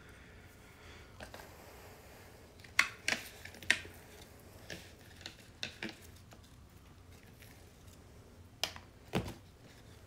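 Scattered sharp clicks and taps from pruning shears and plastic plant pots being handled, with the two loudest snaps about three seconds in and a few more near the end.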